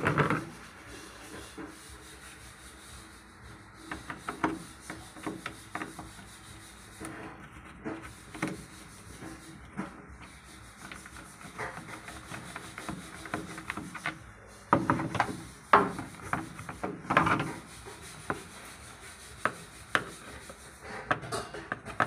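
Screwdriver turning screws and scraping on the plastic housing of a washing machine's water inlet valve. Scattered clicks and rubbing, with a louder run of scrapes and knocks about three-quarters of the way through.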